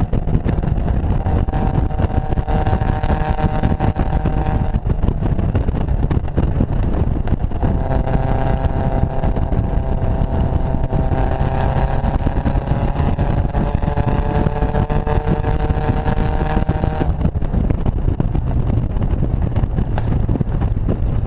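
Datsun Fairlady roadster's four-cylinder engine running on the road, heard from the open cockpit over heavy wind and road rumble. The engine note holds steady, drops away about five seconds in, then returns and climbs slowly for about nine seconds before easing off again near the end.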